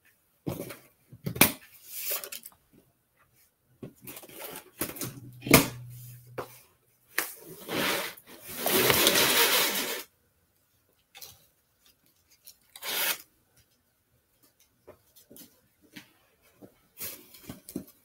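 Cardboard shipping box being handled and opened: scattered knocks, scrapes and rustles, with one longer rasping noise of about a second and a half around nine seconds in.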